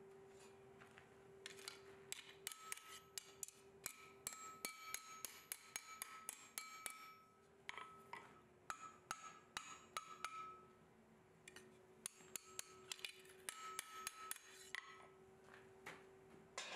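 Blacksmith's hammer striking a steel bar on an anvil in three quick runs of blows, about three a second, each blow ringing with a metallic tone; the blows bend the bar into a ring. A steady low hum runs underneath.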